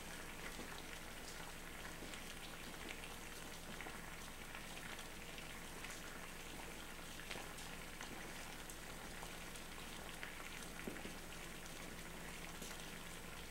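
Water at a rolling boil in a small pot over an alcohol bottle stove: a steady, quiet bubbling hiss with scattered small pops.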